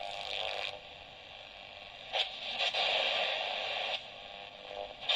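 Shortwave static and hiss from the small loudspeaker of a cheap Rocka 11-band radio (a Kchibo KK-9813 clone) on the 16-metre band. The hiss swells in two stretches, dropping back in between, with a few crackles about two seconds in.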